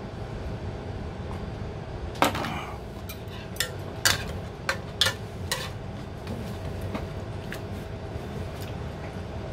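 Metal chopsticks clinking and tapping against a metal ramen pot as noodles are stirred and lifted: a sharp clink about two seconds in, about six more over the next few seconds, then lighter taps. A steady low hum runs underneath.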